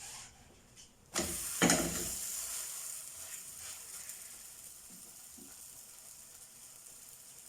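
Oiled msemen dough laid onto a hot pan: a sudden sizzle starts about a second in, with a brief knock or two as it lands, then fades gradually as it cooks.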